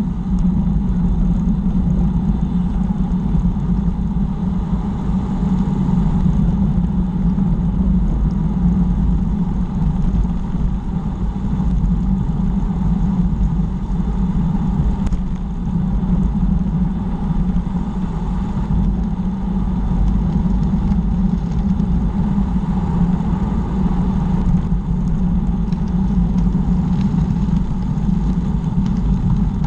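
Steady low wind rumble buffeting a bike-mounted camera's microphone while cycling along a paved lane, with a few faint clicks.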